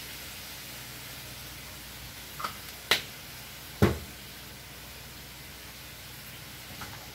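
Kitchen handling sounds at the stove: two sharp clicks about two and a half and three seconds in, then a heavier knock about four seconds in, over a steady faint hiss.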